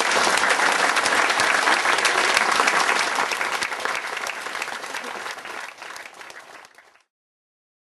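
Crowd applauding. The clapping fades away over the last few seconds and cuts off near the end.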